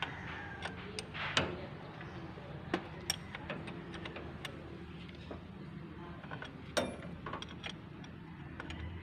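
Irregular metal clicks and taps from a socket wrench working on a car alternator's mounting and terminal nuts, as the newly fitted alternator is tightened down.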